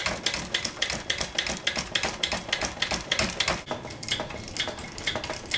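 Rapid, even metallic clicking and clacking from the hand pump of a Harbor Freight hydraulic pipe bender's bottle jack being worked stroke after stroke, driving the ram to bend the pipe in the die.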